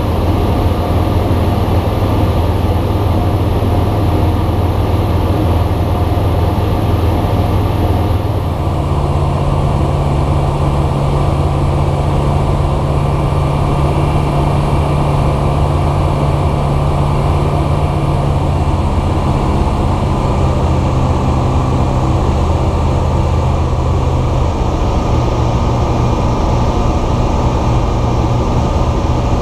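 Bristell light aircraft's piston engine and propeller heard from inside the cockpit, running steadily. About a third of the way in the engine note changes and the hiss above it drops as power is reduced for the landing approach, with a further change in note near the end.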